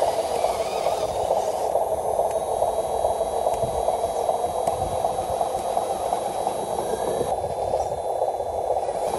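Radio-controlled dump truck's electric motor and gearbox whirring steadily as it drives slowly over rough dirt carrying a load of soil.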